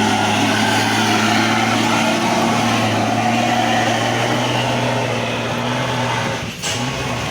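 Bus engine running steadily with a low hum, with a short break about six and a half seconds in.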